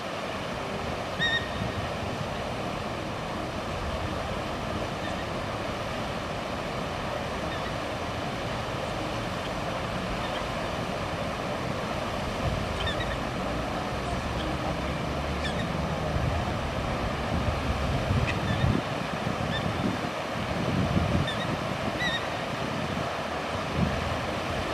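A 25 hp AquaMaster floating fountain spraying, heard as a steady rushing hiss of its water jets falling back onto the lake surface.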